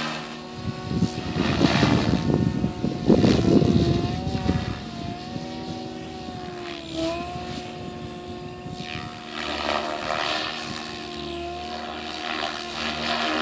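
SAB Goblin 700 radio-controlled helicopter in flight: a steady rotor hum and whine whose pitch wavers and dips briefly about seven seconds in. A louder burst of rushing wind noise on the microphone comes about two to four seconds in.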